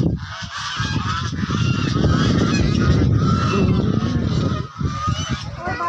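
A flock of white domestic geese honking, many calls overlapping, with a low rumble underneath through the middle seconds.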